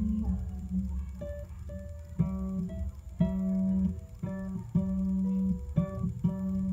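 Harp being plucked slowly, one note or a short group of notes about once a second, each ringing out over a low note that keeps sounding.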